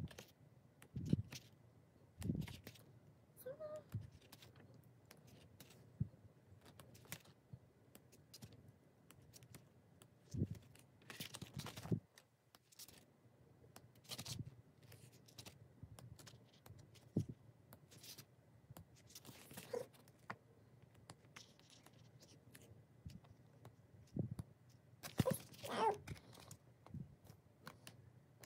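Pages of a glossy photobook being turned one after another: paper rustles and soft flaps at irregular intervals, with a few longer swishing page turns.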